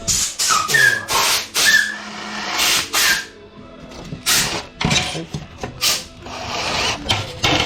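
Irregular run of short, sharp tool noises and metal knocks, one after another every half second or so, with a couple of brief squeaks: tool work on a sheet-metal floor plate being fitted in a car.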